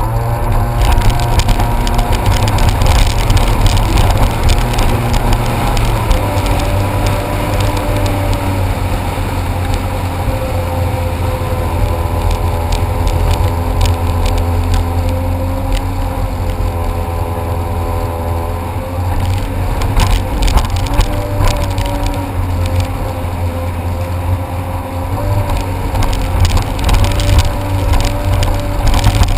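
Jet ski engine running under way, its pitch stepping up and down several times, over a heavy low rumble.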